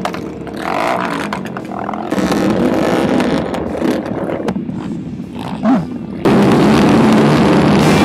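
250cc racing motorcycle engines running and being revved on a starting grid. The sound jumps much louder and denser about six seconds in.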